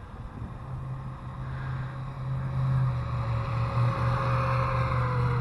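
Small electric motor of a toy RC truck, upgraded with a faster motor and pinion gear, running at speed on asphalt: a mechanical whine with tyre noise that grows louder as the truck comes near, its pitch dropping slightly near the end.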